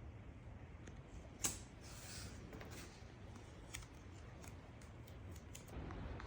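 Faint rustling and light clicks of hands handling painter's tape while marking out guidelines, with one sharper click about one and a half seconds in.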